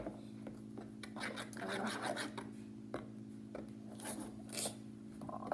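Irregular scraping and rubbing as foam-bead fluffy slime made with shaving cream is stirred and worked, over a faint steady hum.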